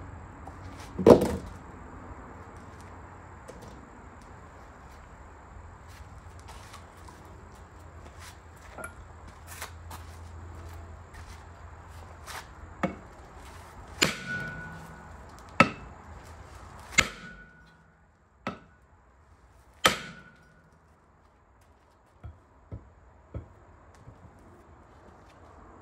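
Hammer blows struck at irregular intervals, about seven sharp hits. Several leave a brief ring, and a few lighter taps follow near the end.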